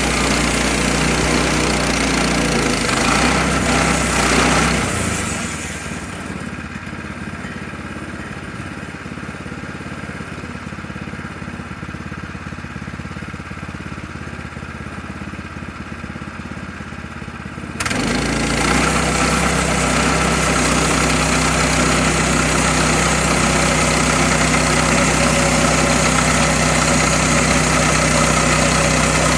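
Small gasoline engine running at a steady speed. About five seconds in it gives way to a quieter, more muffled engine sound, and about eighteen seconds in the louder steady running returns abruptly.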